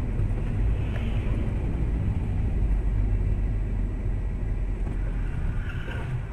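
Steady low rumble of a car driving, road and engine noise as picked up by a dashcam.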